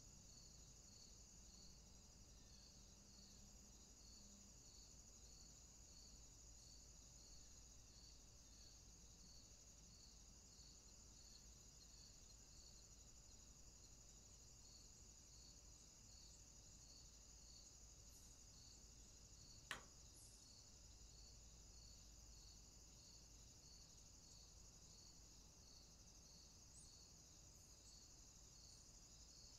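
Near silence with faint, steady high insect chirping that pulses about every two-thirds of a second, and one short sharp click about two-thirds of the way through.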